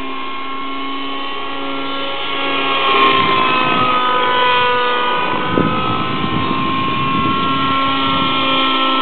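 Thunder Tiger Raptor 60 nitro RC helicopter in flight, its two-stroke glow engine running with a steady high whine whose pitch wavers slightly. About three seconds in it gets louder and a low rushing sound joins it.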